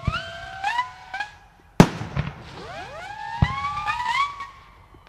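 Fireworks display: several whistling fireworks sound at once, each whistle rising in pitch and then levelling off. A sharp bang of a shell bursting comes a little under two seconds in, and another at the very end.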